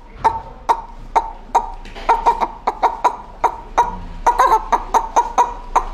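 A man imitating a hen's clucking with his voice: a run of short, sharp clucks, a few a second, coming faster after about two seconds.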